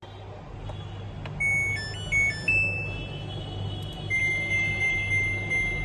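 Samsung front-load washing machine control board sounding a short tune of stepped electronic beeps, then one long steady beep, over a steady low electrical hum.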